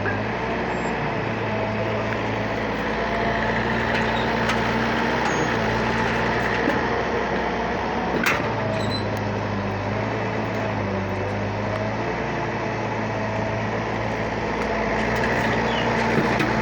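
Excavator's diesel engine running steadily, its pitch stepping slightly up and down, with one sharp knock about eight seconds in.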